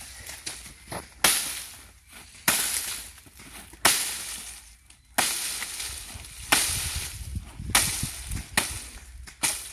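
A heavy cane knife (mocha) chopping the tops off a pile of sugarcane stalks. There are about eight sharp strokes, roughly one a second, each followed by a rustle of dry cane leaves.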